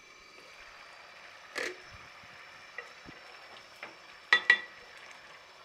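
A pot of mash (urad) dal simmering with a steady low bubbling hiss. About one and a half seconds in there is a knock as the glass lid comes off. Near the end a metal spoon stirs the dal and clinks sharply twice against the steel pot.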